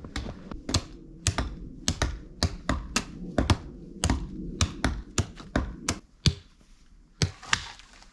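Hand axe chopping into a small tree trunk: quick, sharp strokes two or three a second, thinning to a few single strokes over the last couple of seconds.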